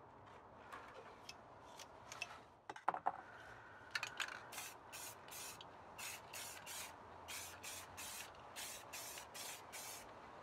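Aerosol spray-paint can sprayed in rapid short bursts, about three quick hisses a second. A few sharp clicks come about three seconds in, before the bursts start.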